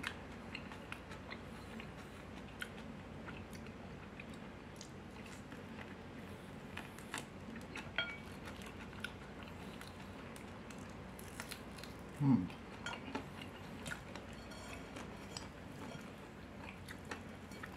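A person chewing and tearing apart crispy fried chicken, with scattered small clicks and crackles, and a short vocal sound about twelve seconds in.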